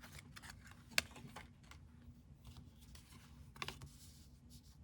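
Basketball trading cards being handled, with faint soft clicks and rustles as they are slid and shuffled. There is one sharp click about a second in and a few more clicks later on.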